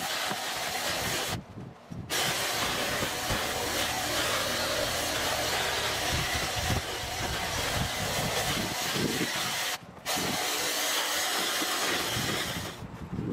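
Lawn power equipment running steadily with a loud rushing hiss, dropping out abruptly twice.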